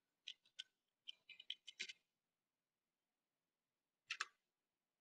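Faint computer keyboard keystrokes as a password is typed: two single taps, a quick run of about half a dozen keys about a second in, and a last pair of taps near the end.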